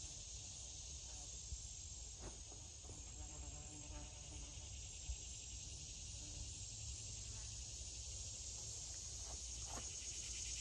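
Steady, high-pitched chorus of insects buzzing in the background, with a few faint taps.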